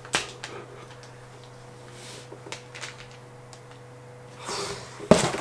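Packaging being handled as a plastic-wrapped bike fork in a cardboard holder is lifted from its box: a few light clicks, then plastic rustling and a sharp knock near the end. A steady low hum sits underneath.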